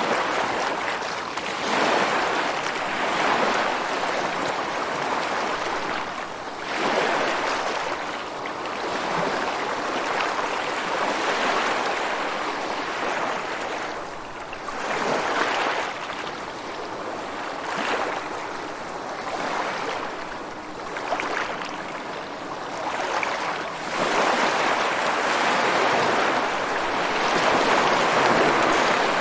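Ocean surf washing in and out, the rush swelling and easing every few seconds, with a longer, louder wash near the end.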